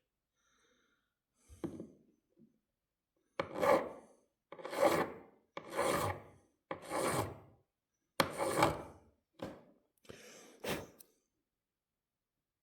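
Hand file stroking across a peened rivet head, taking it down flush with the ring it sits on. It makes about eight separate rasping strokes with short pauses between them.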